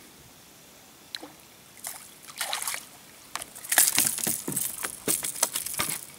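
Hooked snook splashing and thrashing at the surface beside the boat, then landed and flapping on the deck in a rapid, loud run of slaps and knocks from a little under 4 seconds in.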